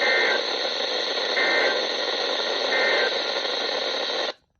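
Emergency Alert System end-of-message code received over a radio: three short bursts of two-tone data about 1.3 seconds apart over steady hissing static. The radio signal then cuts off suddenly about four seconds in.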